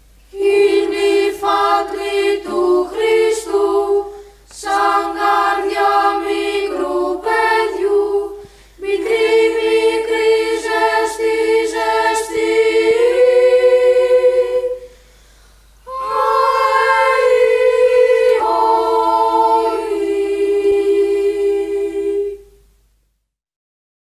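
An unaccompanied choir singing a melody in close harmony, from a song on the soundtrack of a 1960s Greek film. There are four phrases separated by short breaths, and the singing ends about 23 seconds in.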